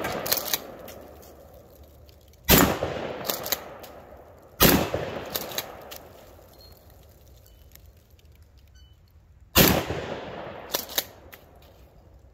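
A shotgun firing 2¾-inch low-brass #7.5 birdshot: three shots, the first two about two seconds apart and the third about five seconds later. Each report rings out and fades, and is followed about a second later by a couple of short, sharp clacks.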